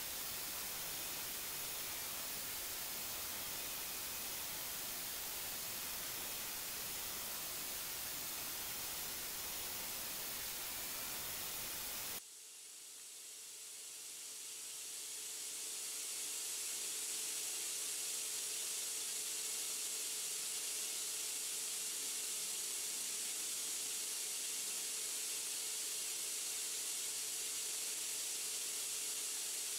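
Steady hiss of air blowing chips off a part being milled. About 12 seconds in it cuts off abruptly and is replaced by a brighter hiss with a faint steady hum underneath, fading up over a few seconds.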